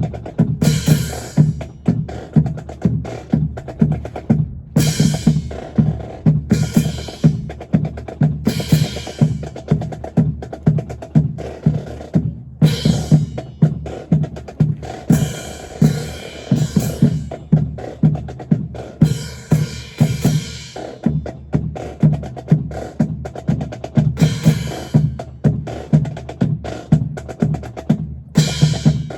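Marching drum cadence of snare and bass drum, beating a steady rhythm at about three beats a second. Short bursts of brighter rattle or crash come every second or two.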